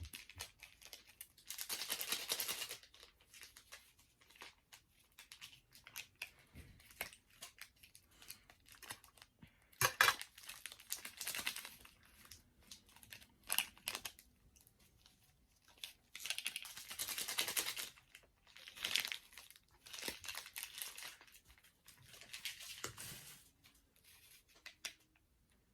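Instant noodle seasoning packets being torn open and crinkled, in repeated short bursts of tearing and rustling, with one sharp tap about ten seconds in.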